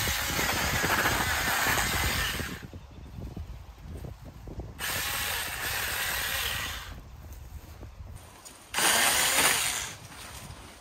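Battery-powered 24 V cordless mini chainsaw running in three bursts while cutting brush stems: a long first burst of about two and a half seconds, a second of about two seconds in the middle, and a short one near the end.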